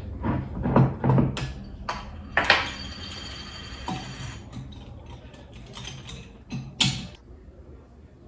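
Glass and bottle clinks and knocks, and about two and a half seconds in, red wine poured into a wine glass for about a second and a half, stopping abruptly.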